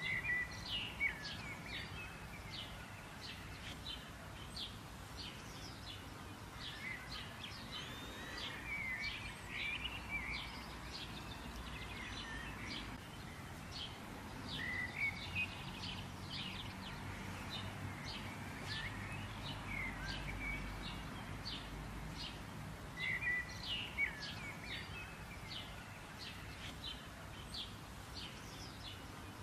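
Birds chirping: many short high calls, several a second, with a few louder warbling calls mixed in, over a faint low steady rumble.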